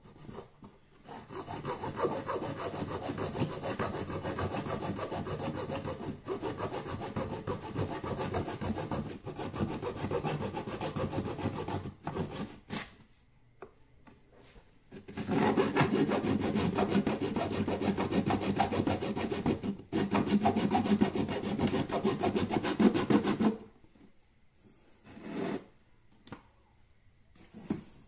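Hand-held saw blade cutting along the length of a PVC pipe with rapid back-and-forth strokes. It goes in two long runs with a short pause between, then a few brief knocks near the end.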